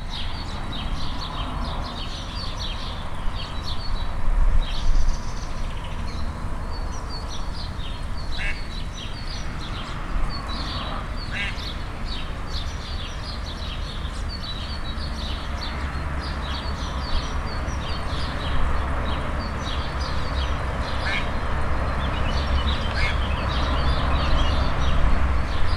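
A duck quacking now and then over the constant high, rapid peeping of her ducklings.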